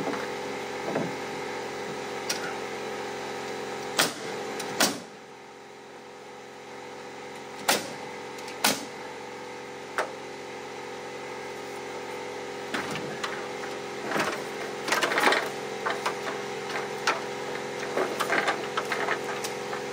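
A motor or engine running steadily, with single sharp knocks every second or few seconds in the first half and a busier run of knocks and rattles in the second half.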